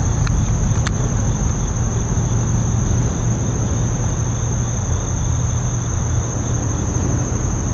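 Insects droning in one steady high-pitched note over a steady low rumble, with a faint click about a second in.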